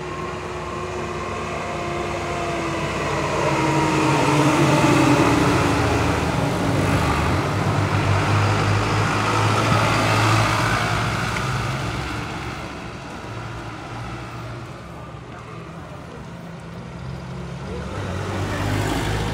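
Trucks and vans driving past one after another, engines running over tyre noise. One engine note falls in pitch as it goes by a few seconds in. The sound is loudest about five and ten seconds in, dies down, then builds again near the end as another vehicle comes close. The vehicles include an Isuzu light box truck.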